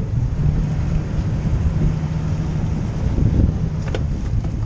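Boat engine idling with a steady low hum, under wind buffeting the microphone.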